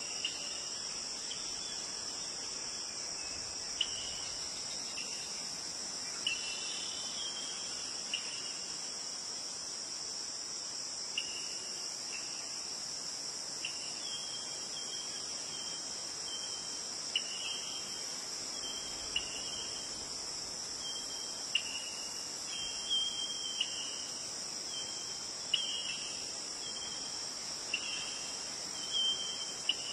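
Steady high-pitched chorus of insects, with short chirped notes, slightly lower in pitch, recurring every second or two over it.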